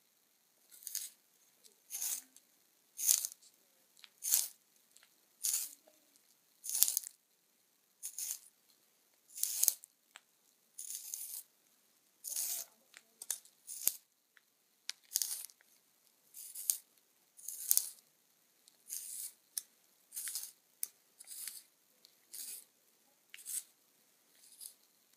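A pencil being sharpened in a small handheld sharpener: a dry, scraping shave with each twist of the pencil, repeating at an even pace of a little under one stroke a second, about twenty times.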